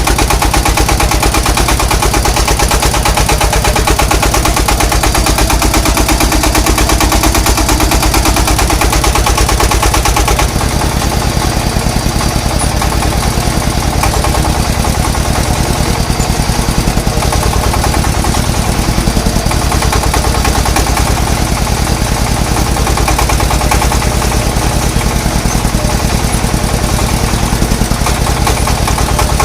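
An engine running loud and steady with a fast, even chugging beat; its note shifts slightly about ten seconds in.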